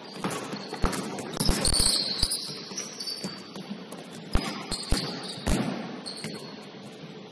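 A basketball bouncing on a gym floor during play: an uneven run of sharp thuds, several in quick succession about a second in and a few more around the fifth second, with short high shoe squeaks between them.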